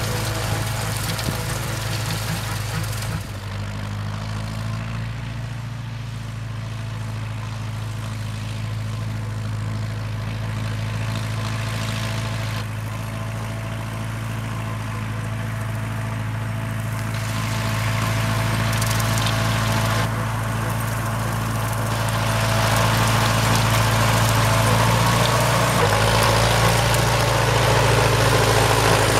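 1961 John Deere 1010 tractor's engine running steadily under load while it drives a Ford 939 rotary cutter through dry grass. It grows louder over the last several seconds as the tractor comes closer.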